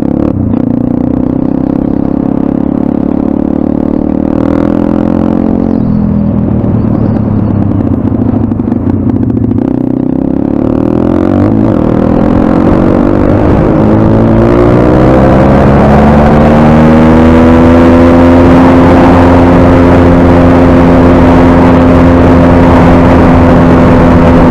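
Single-cylinder four-stroke pit bike engine heard from on board, running hard under way. The revs dip and pick up again twice, then climb steadily about halfway through and hold high and steady to the end.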